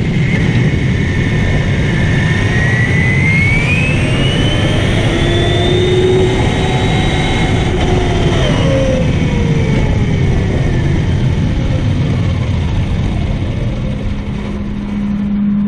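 A 3D-printed 1:8 scale electric RC Supra driving on asphalt, heard from a camera riding on the car: a constant rumble of tyres and drivetrain on the road, with a motor whine that rises in pitch as the car speeds up, holds, then falls as it slows.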